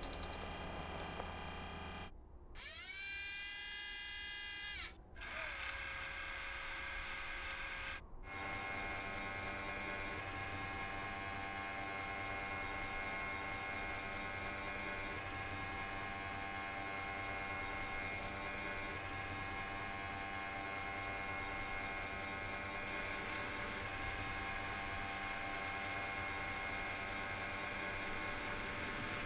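Added sound effects for the Curiosity rover's mechanisms. About two and a half seconds in, a whine rises and then holds steady until about five seconds. From about eight seconds on, a steady electric motor whir runs under the robotic arm's movement.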